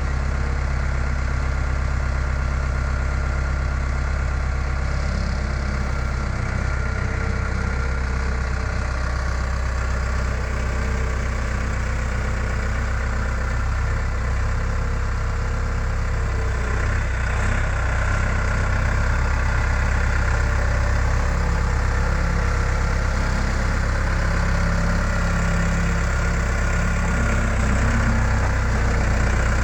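Skid steer engine running steadily, a little louder from about two-thirds of the way in.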